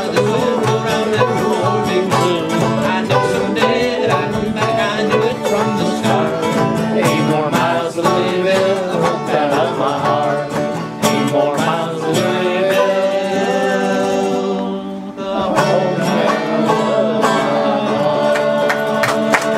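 Live bluegrass played on acoustic guitar and banjo, with singing. Near the end the music drops away briefly, then returns with long held notes.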